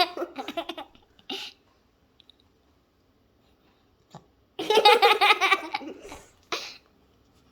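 A person laughs in two long bursts, one at the start and another about halfway through. Between and after them come a few short, sharp sounds: the puppy hiccuping.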